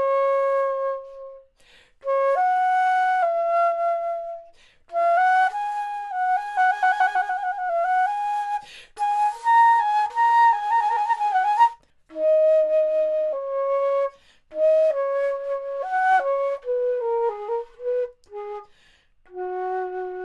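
A 3D-printed Tortochot-model baroque flute (traverso) played solo: a melodic line of held and moving notes in short phrases with brief pauses between them, including a quick trill about six seconds in.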